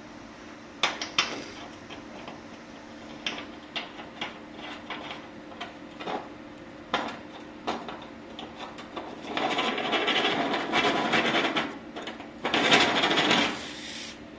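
Metal tools clicking and knocking as they are handled, then two spells of harsh grinding, of a drill bit being ground in a sharpener, each a couple of seconds long, over a faint steady hum.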